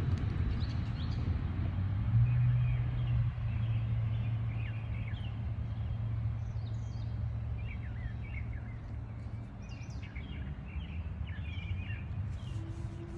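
Birds chirping over a low outdoor rumble, with a steady low hum through the middle. Just before the end a faint rising tone starts, a tornado warning siren beginning to wind up.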